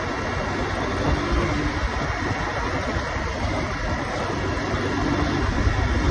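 Honda motorcycle riding at road speed: engine running under wind rushing over the microphone, steady throughout.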